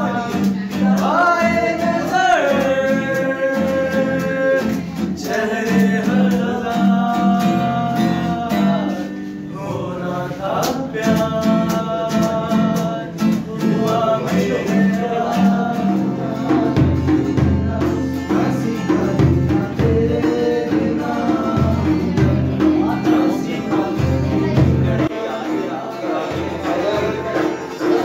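A young man singing live with long held notes to a strummed acoustic guitar, with a low beat joining in about halfway through.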